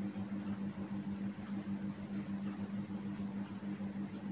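Steady low hum with a faint high tick about once a second.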